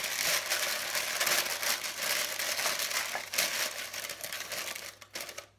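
Parchment paper crinkling and rustling as hands press and fold it into a glass bowl, dying away near the end.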